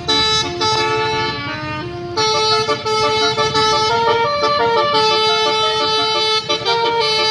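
Bus 'telolet basuri' musical horn playing a tune of long held notes that step up and down in pitch, breaking off briefly about two seconds in, over a low engine rumble.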